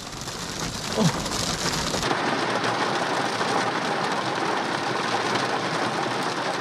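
Heavy rain and hail falling in a dense, steady hiss. About two seconds in the sound changes abruptly and becomes fuller, with the deep rumble gone.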